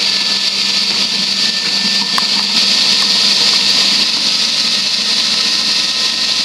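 Electric food processor running steadily at full speed, its blade chopping red peppers and chillies fed in through the feed tube, with a steady motor hum under the whirr. One faint click about two seconds in.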